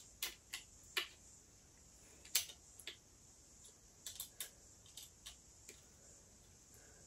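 Small screwdriver clicking against screws as they are driven into an SSD's mounting caddy: a dozen or so sharp, irregular little clicks.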